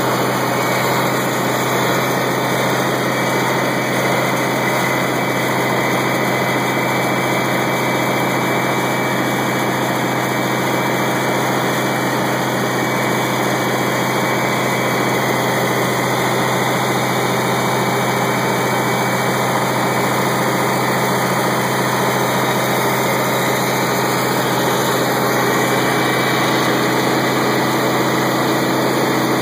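Caterpillar 3412 V12 diesel generator engine running steadily at a constant speed, just under the speed for 60 Hz output while its governor is being adjusted.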